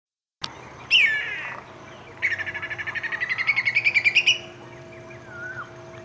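Whistling kite calling: one long falling whistle, then a fast run of about twenty short notes that climb in pitch and grow louder before stopping abruptly.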